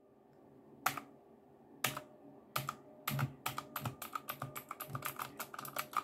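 Keys of a Royal Kludge typewriter-style mechanical keyboard with round keycaps being pressed: two single clicking keystrokes, then from about two and a half seconds in a quick run of keystrokes, several a second.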